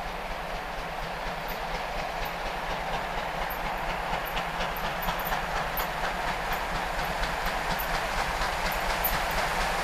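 Ol49 steam locomotive approaching at speed, its exhaust beats and rail noise growing steadily louder as it nears.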